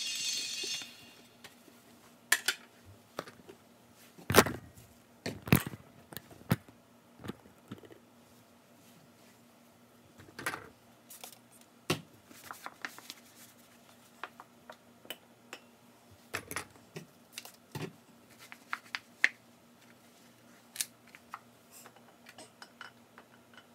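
Scattered clicks, knocks and light clinks of household items being picked up and set down, the loudest knocks about four and five and a half seconds in, over a faint steady hum. A short hiss comes at the very start.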